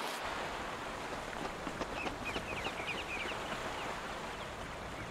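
Steady seashore ambience: an even wash of surf noise, with a quick run of small high bird chirps about two seconds in.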